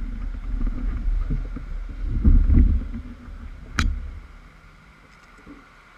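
Low wind rumble buffeting a bike-mounted action camera's microphone while riding, with one sharp knock a little under four seconds in. The rumble then drops away to a quieter steady street background as the bike stops.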